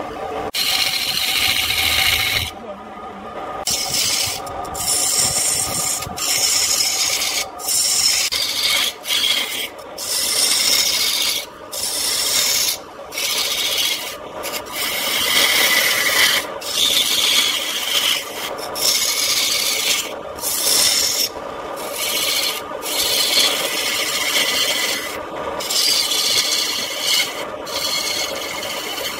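Woodturning gouge cutting a spinning wooden cylinder on an electric lathe: a continuous rasping hiss of shavings peeling off, broken many times by brief gaps where the tool lifts away. Under it runs the steady hum of the lathe's motor.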